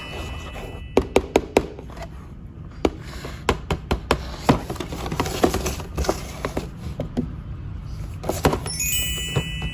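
Sharp plastic clicks and knocks from a toy double-decker bus being handled, in quick groups about a second in and again from about three and a half to six seconds in. A short electronic chime tune comes in near the end.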